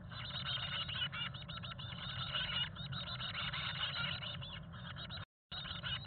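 Chickadee nestlings begging to be fed as a parent arrives, a dense run of rapid, high-pitched chirps with a low rumble underneath. The sound drops out for a moment near the end.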